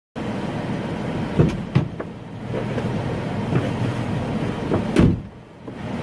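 A person getting into a car's driver's seat: a couple of knocks and rustles, then the car door shut with a loud thump about five seconds in, which briefly cuts off the outside noise.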